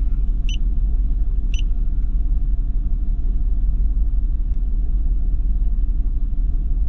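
BMW E46 inline-six engine idling with a cylinder 2 misfire caused by a faulty ignition coil, heard from inside the car as a steady low rumble. Two short electronic beeps from the OBD scanner's buttons sound about half a second and a second and a half in.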